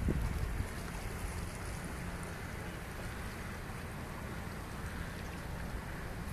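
Steady rushing wash of sea water.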